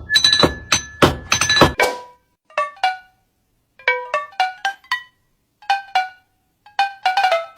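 A rhythmic run of strikes with a held high tone, stopping about two seconds in, then short pitched plinking notes that ring and fade, struck in small runs with short gaps between.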